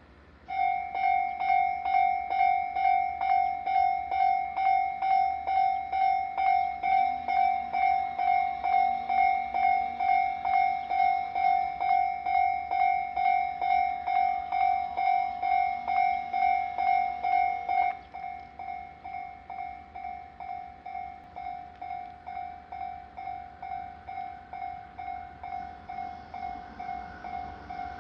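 Japanese railway level-crossing alarm ringing, a repeated clanging tone at about two strokes a second that starts about half a second in. About two-thirds of the way through it drops suddenly to a much quieter level and keeps ringing.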